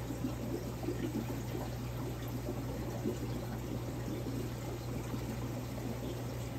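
Steady trickling and pouring of circulating water in a large overflow aquarium, with a steady low hum underneath.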